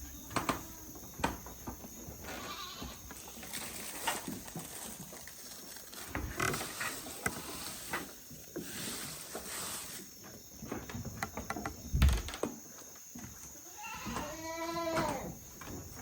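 A goat bleats once near the end, a single wavering call, over scattered clicks and rustling. There is a sharp thump about twelve seconds in.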